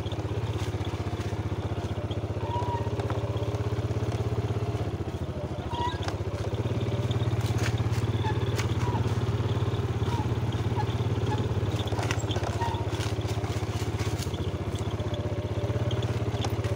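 Motorcycle engine running steadily at low speed on a forest dirt trail, with scattered clatter from the bike over the ground. The engine note drops slightly about five seconds in and picks up again a couple of seconds later.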